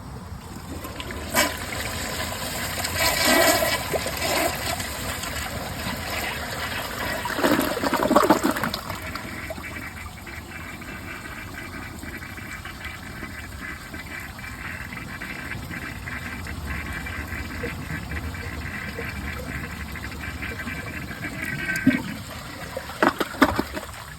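A 2011 Glacier Bay toilet flushing: a click of the handle, a rush of water into the bowl and a gurgling surge about eight seconds in. The tank then refills with a steady hissing fill valve that shuts off a couple of seconds before a few knocks near the end.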